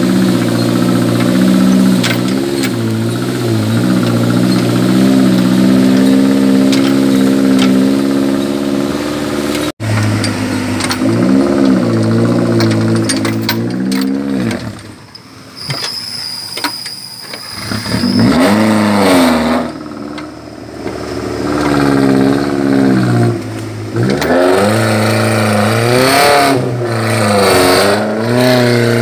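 Off-road 4x4 engine running steadily under load. After a brief dropout about ten seconds in, it revs up and falls back again and again as the vehicle works along the trail.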